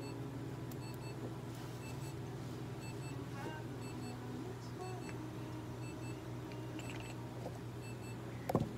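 Short electronic beeps repeating over a steady low electrical hum, from equipment in a veterinary exam room.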